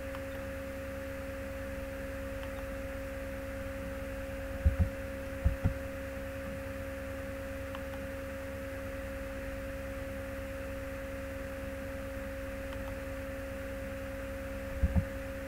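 Steady electrical hum with a constant pitched tone, picked up by the recording microphone. A few short, low thumps come about five seconds in and again near the end.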